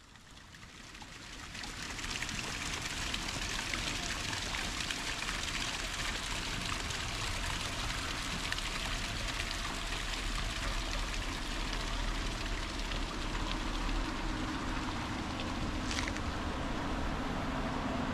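Running water, a steady rushing hiss that fades in over the first couple of seconds; a low hum builds underneath in the second half.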